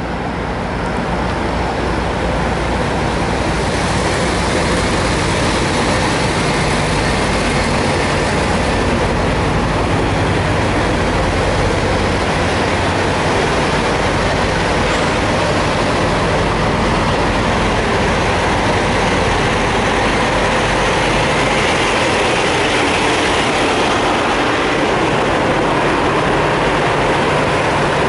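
Diesel engines of parked semi trucks idling: a steady low rumble with hiss over it.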